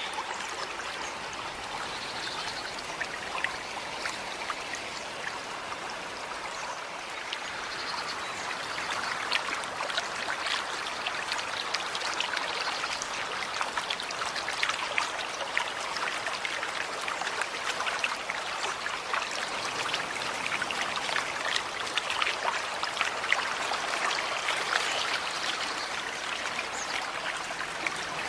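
Small forest stream running and trickling over stones, a steady babble of water that grows a little louder and busier about eight seconds in.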